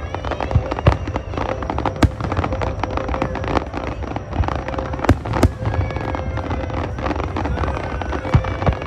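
Fireworks going off in a finale barrage: dense crackling and popping throughout, with several sharp bangs, the loudest about two seconds and five seconds in.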